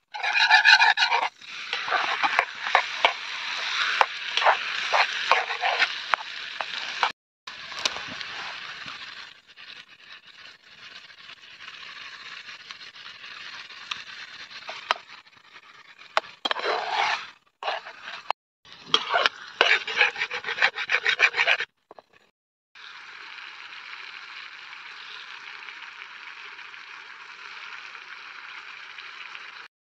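A metal spatula scraping and stirring food around a steel frying pan set over a wood fire, in quick repeated strokes. Near the end, a steady hiss of food frying in the pan.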